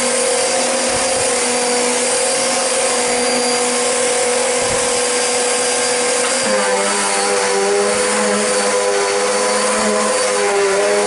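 VAX U85 PC Be upright bagless vacuum cleaner running on carpet with a steady motor whine; about six and a half seconds in its note shifts lower as the load on the motor changes.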